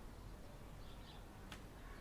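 Faint, distant bird chirps over a low outdoor background rumble, with a single sharp click about a second and a half in.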